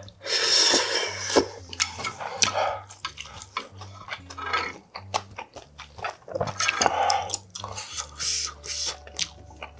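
A person slurping up a mouthful of spicy ramen noodles in one long, loud slurp about half a second in, then chewing with wet smacking and clicking mouth sounds.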